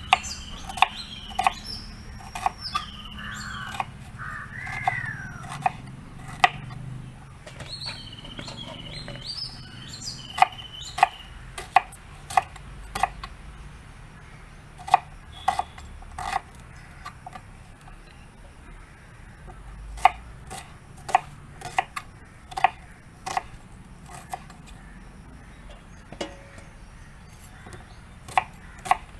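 Knife chopping vegetables on a cutting board in irregular runs of sharp taps, with birds chirping over the first ten seconds or so.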